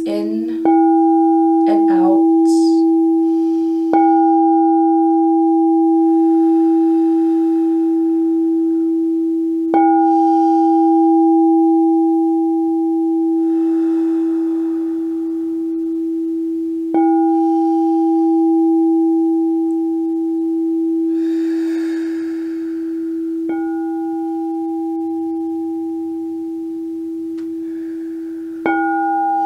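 Frosted quartz crystal singing bowl struck with a wand six times, a few seconds apart. Each strike renews one steady low hum and a higher ringing overtone that fades before the next. Soft breathy exhales sound between the strikes.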